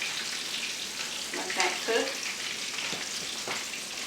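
Breaded chicken cutlets sizzling steadily as they fry in olive oil in a skillet, browning on one side. A short louder sound rises over the sizzle between one and a half and two seconds in.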